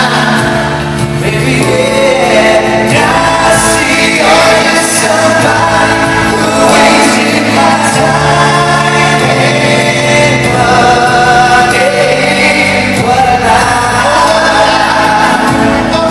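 A male pop vocal group singing a song in close harmony, several voices together over steady instrumental backing, amplified through a PA.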